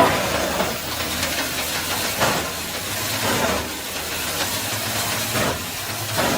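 Wood chipper running and shredding wood: a steady hissing rush with louder surges about once a second.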